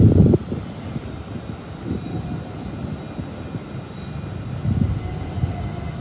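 Low rumble of a train moving through the station, with a faint steady whine above it. Wind gusts buffet the microphone, the strongest at the very start.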